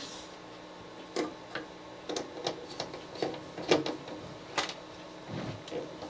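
Irregular small clicks and scrapes of a screwdriver and wire against the screw terminals of a garage door opener's wiring panel as a wire is fastened down.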